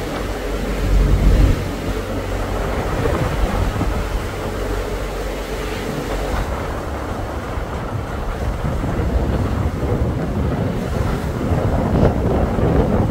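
Motor cruiser under way at sea: wind buffeting the microphone over a steady rumble of engine and water. The wind gusts hardest about a second in.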